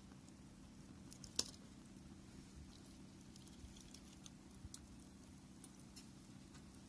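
Wood campfire crackling faintly, with scattered small ticks and one sharper pop about one and a half seconds in.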